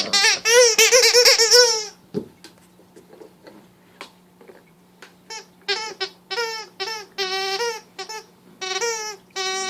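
Squeaker in an oversized dog-toy frisbee squealing as it is squeezed: a long wavering squeal in the first two seconds, then a run of short squeaks from about five seconds in.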